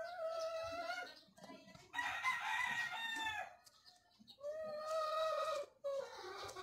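A rooster crowing three times, each crow about a second long; the middle one is the loudest and falls away at its end.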